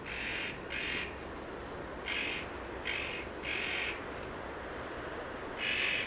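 Spotted nutcracker giving its grating, rasping call: six short harsh calls, two near the start, three close together in the middle and one near the end.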